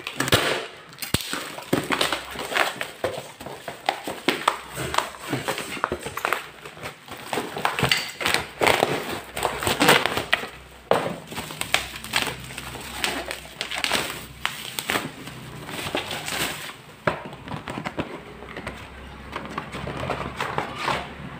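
A parcel being torn open by hand: black plastic bubble wrap, packing tape and cardboard rustling and ripping in irregular bursts.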